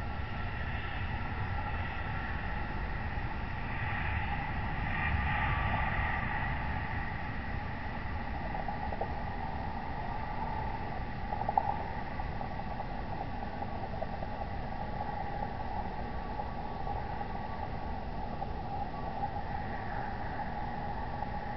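Steady low rumble and hiss of outdoor background noise picked up by a security camera's microphone, with faint steady tones. It swells slightly about five seconds in, and there is one short click about eleven and a half seconds in.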